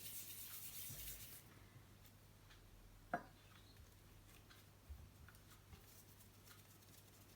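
Near silence: faint rubbing with a soft hiss in the first second or so and a single light tap about three seconds in, the sound of dough being handled by hand.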